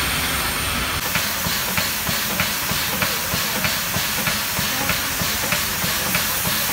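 Steam locomotive hissing steadily as steam vents from around its cylinders while it rolls slowly, with a regular light click about three times every two seconds.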